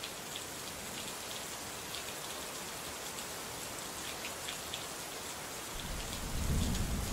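Steady heavy rain with scattered drops pattering. A low rumble comes in near the end.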